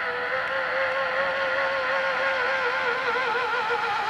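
Zipline trolley's pulley wheels whining along the steel cable as a rider comes down the line. The whine holds steady, then wavers and drops in pitch near the end as the trolley slows toward the platform.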